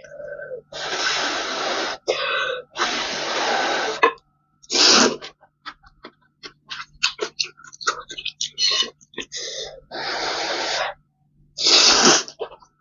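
Noodles being slurped up from a bowl of spicy Korean noodle soup: about five long, loud slurps, the loudest near the middle and near the end, with wet chewing and smacking clicks in between.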